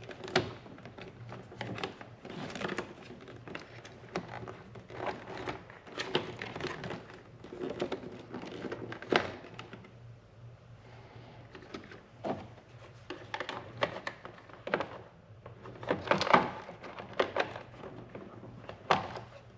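Hands handling and routing plastic-sheathed wiring and connectors under a UTV's front hood: irregular clicks, taps and crinkling rustles, with a few sharper clicks.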